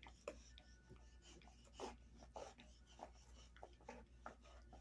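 Faint, irregular gnawing of a dog chewing a beef cheek roll: soft clicks and scrapes of teeth on the hard chew, a few a second.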